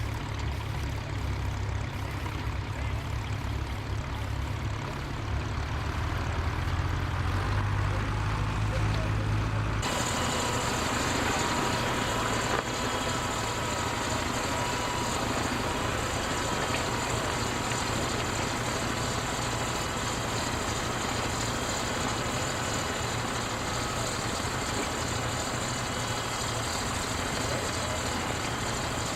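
Tractor engine running steadily, its sound changing abruptly about ten seconds in.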